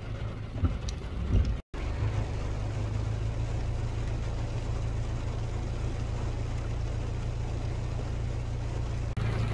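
Steady rain hiss over a constant low hum like an idling engine; the sound cuts out for an instant about two seconds in.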